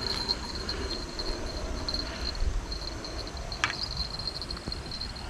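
Insects trilling in a steady, pulsing high chirp over a low rumble, with one sharp click about three and a half seconds in.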